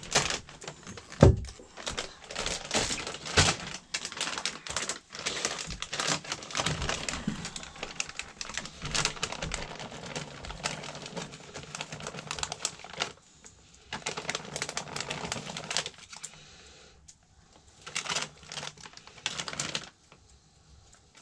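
Plastic bag of cut vegetables crinkling and rustling as it is handled, with many irregular small clicks and taps of food and utensils at the bowl, and one thump about a second in. It falls quiet for short spells in the last third.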